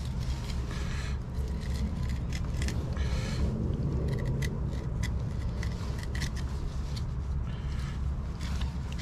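Fillet knife cutting along the back of a blackbelly rosefish, with repeated scraping and sharp clicks as the blade works through the spiny, scaly fish on a plastic cutting board, over a steady low rumble.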